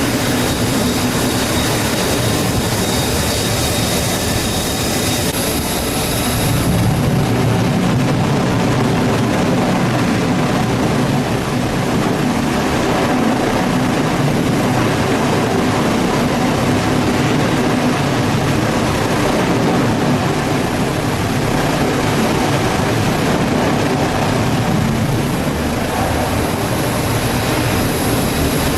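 Loud, steady jet engine noise from F-35C Lightning II fighters on an aircraft carrier's flight deck. A high whine fades out about six and a half seconds in, and the deeper engine sound grows stronger.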